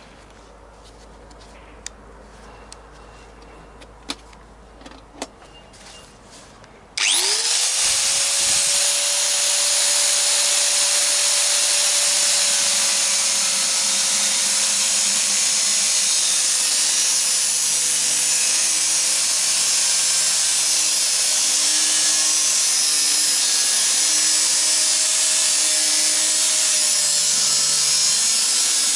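A few light clicks and knocks, then about seven seconds in an electric power tool starts with a quickly rising whine that settles to a steady pitch, and runs on steadily under a loud, hissing noise.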